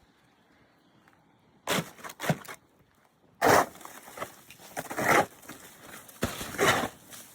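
Snow shovel scraping and scooping through icy snow that has been loosened with boiling water, in several separate crunching strokes. The strokes begin after a quiet second and a half.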